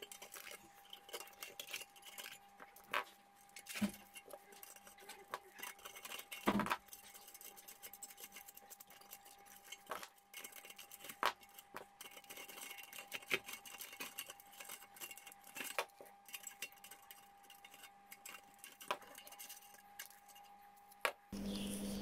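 Scattered faint clicks and scrapes of needle-nose pliers gripping and working a terminal pin out of an electric heater's connector, over a faint steady hum.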